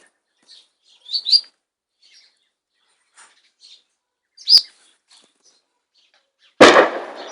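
A few short chirps from small birds, then, near the end, a single loud artillery blast that hits suddenly and dies away over a second or so.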